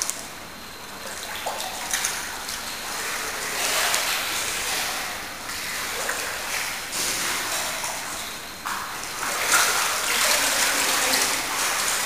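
Pool water sloshing and splashing as a pygmy hippopotamus moves through it, swelling and easing every few seconds.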